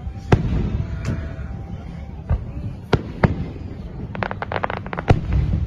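Aerial fireworks going off: a series of sharp booms, with a rapid run of crackling pops about four seconds in, over a steady low rumble.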